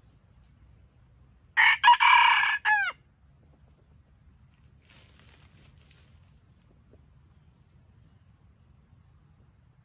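Red junglefowl rooster crowing once, a short crow of little more than a second whose final notes drop in pitch.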